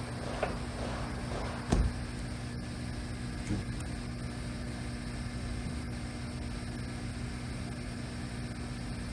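LeBlond engine lathe running with its spindle at speed, most recently set to 900 RPM: a steady geared hum with a constant tone. One knock comes about two seconds in.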